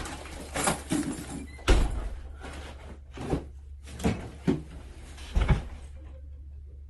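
A series of irregular sharp knocks and clicks, about seven in all, two of them with a heavy low thump, over a faint steady hum.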